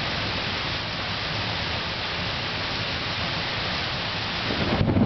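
Heavy thunderstorm rain pouring down in a steady hiss. Near the end a low rumble of thunder begins and the sound grows louder.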